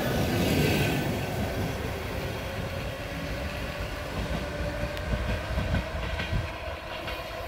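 ER2 electric multiple-unit commuter train running along the track, a steady rumble with a held tone above it, fading steadily as it moves away. A few wheel clacks over rail joints come near the end.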